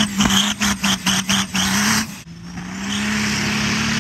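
A 1,000-horsepower second-gen Dodge Ram's Cummins diesel revving hard as the truck spins, the engine note slowly climbing. For about the first two seconds the sound is choppy, cutting in and out several times, then it holds steady at high revs.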